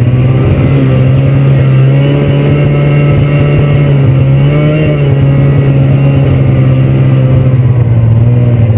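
Snowmobile engine running steadily as the sled rides along a snowy trail, its pitch dipping and rising slightly about halfway through.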